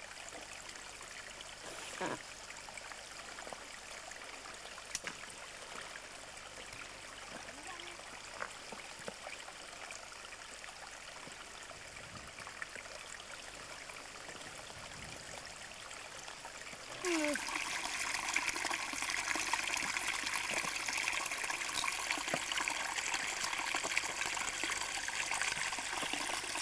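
A stream running over stones, a steady rush of water that suddenly becomes much louder about two-thirds of the way through.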